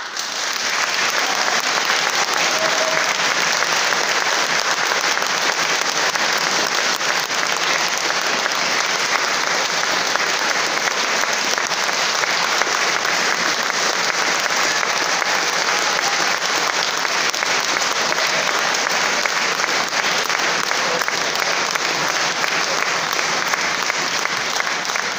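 Concert audience applauding: dense, steady clapping from a full hall that starts suddenly as the orchestra's final note dies away.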